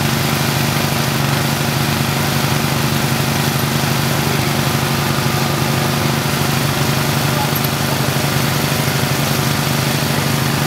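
An engine running steadily at an unchanging speed, with an even, fast pulse to its drone.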